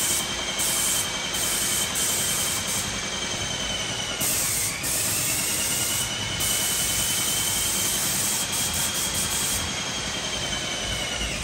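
Electric airless paint sprayer running: a steady high whine from the pump motor over the hiss of spray. The whine sags briefly about four seconds in, picks back up, and drops away sharply near the end as the pump slows.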